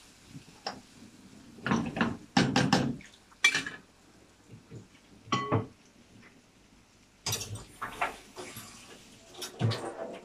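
A metal spatula scraping and clanking against a frying pan while noodles are stirred, in several short bouts of clatter with pauses between.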